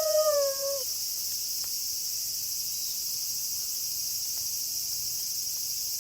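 A wolf's howl ends with a falling pitch in the first second. After it, a steady high-pitched chorus of night insects fills the rest.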